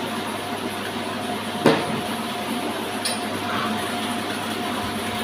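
Horizontal saw machine running with a steady mechanical drone. A single sharp metallic clank comes about a second and a half in, and a lighter one about three seconds in.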